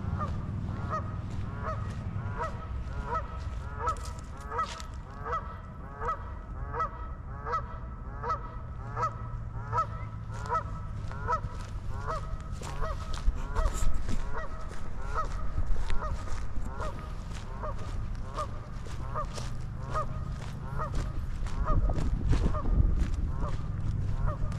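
A flock of Canada geese honking over and over, roughly one to two honks a second without a break.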